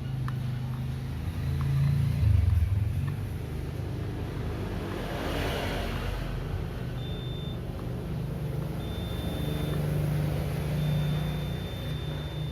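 Multimeter continuity buzzer beeping in a high, steady tone: briefly once, then for about a second, then held near the end, signalling that the probes have found a connected path on the laptop motherboard. A steady low hum and rumble runs underneath.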